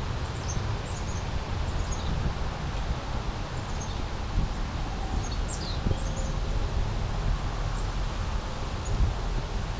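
Small brook babbling steadily. Many short, high bird chirps are scattered over it, with a low rumble underneath.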